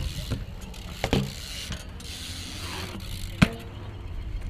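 BMX bike coasting around a concrete skatepark bowl, its rear hub's freewheel ticking and tyres rolling on the concrete. Sharp knocks come about a second in and again near three and a half seconds, the second one the loudest.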